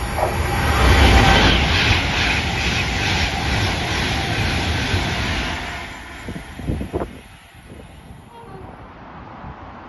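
A train passing along the platform: a loud rush of wheel and rail noise that swells in the first second, holds, then fades after about six seconds. A few sharp clacks follow.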